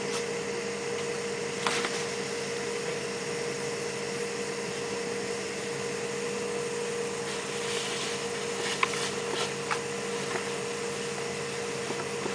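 Portable ventilation blower running steadily: a constant motor hum with a steady whine. A few short knocks and clatters sound over it, about two seconds in and again between eight and ten seconds.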